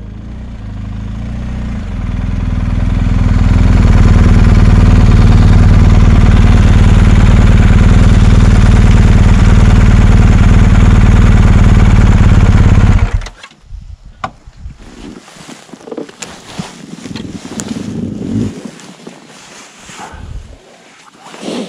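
Motorcycle riding on the road: the engine and rushing wind grow louder over the first few seconds and hold very loud and steady, then cut off suddenly about 13 seconds in. Quieter scattered clicks and knocks follow.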